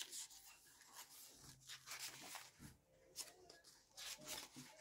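Paper pages of a handmade traveler's notebook being turned by hand: soft, crisp rustles and flicks, about half a dozen, close together.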